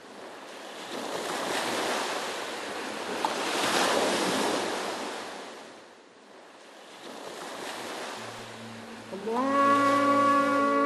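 Sea waves surging in and drawing back, in two slow swells. About nine seconds in, music enters with long held notes.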